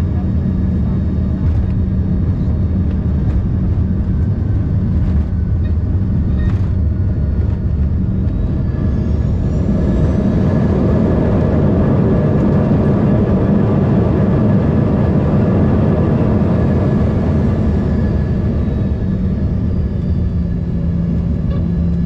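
Cabin sound of an Embraer ERJ-145's Rolls-Royce AE3007 turbofans and undercarriage on the landing rollout: a steady engine drone and tyre rumble, with several light thumps in the first seconds. About nine seconds in, the engines spool up with a climbing whine into a louder rush that holds for several seconds and then dies away, which points to reverse thrust slowing the jet.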